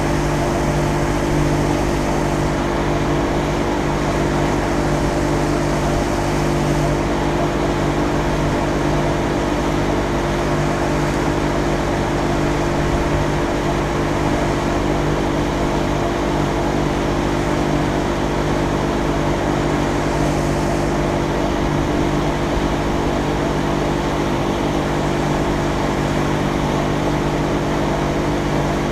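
Small boat's outboard motor running at a steady cruising speed, heard from on board as one even drone over the rush of the boat moving through the water.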